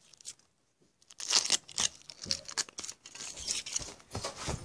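Foil wrapper of a Kinder Surprise egg being peeled off and crinkled: a run of irregular crackling and tearing that starts about a second in.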